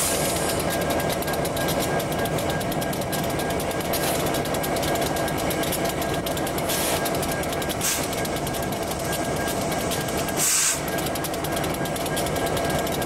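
Diesel locomotives, among them a GP38-2, idling at a standstill with a steady drone, while compressed air from the air brake system hisses in short bursts five times, the loudest about ten and a half seconds in.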